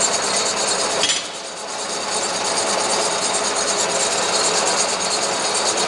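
Model 532 gear hobbing machine running: a steady mechanical clatter of its gear train with fast, even ticking, briefly dropping in level about a second in.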